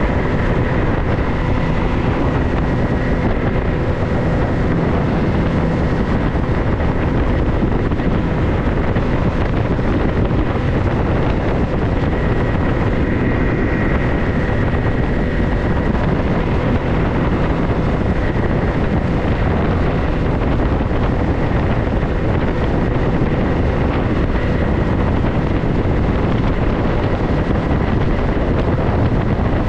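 A 4x4 vehicle under way, giving a steady engine and drive noise with a faint constant whine. Wind noise hits the microphone throughout.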